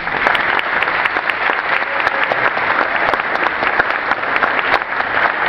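Audience applauding: many hands clapping in a dense, even patter that holds steady, given in thanks to the show's musicians.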